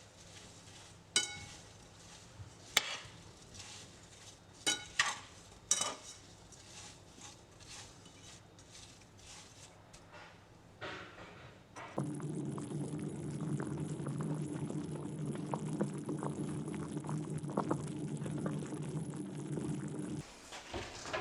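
Kitchen utensils clinking and knocking against dishes and pans, a series of short sharp strokes. From about twelve seconds in a steady noise with a low hum takes over, and it stops just before the end.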